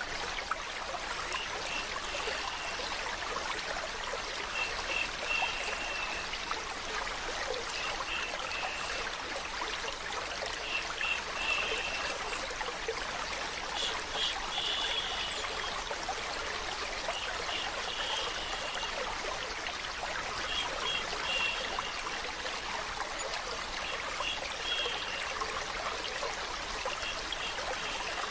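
Stream water trickling and running steadily, with short high tones coming back every couple of seconds.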